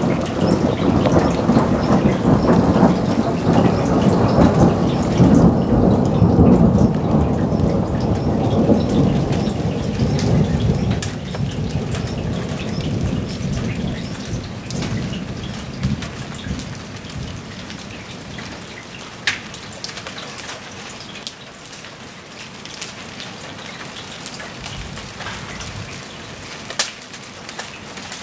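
A thunderclap breaks with a sudden loud rumble and rolls away over about ten seconds, over steady rain pattering on the ground and foliage. A few sharp taps stand out in the second half.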